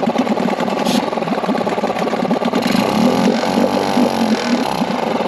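2001 Yamaha 5 hp two-stroke outboard engine running unevenly as it starts to die, kept alive by carb cleaner sprayed into the intake manifold; its speed wavers in the middle. Running on the spray points to a fuel restriction in the carburetor.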